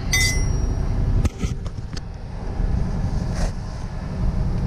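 Metal hand tools clink at the start with a brief ring, followed by a few short clicks and knocks, over a steady low rumble.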